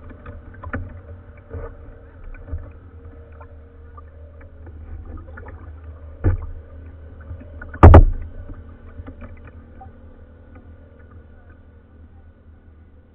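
Plastic kayak moving on a river, heard from its bow: a steady low rumble of water against the hull, with a few light taps and two louder knocks about six and eight seconds in, the second one the loudest.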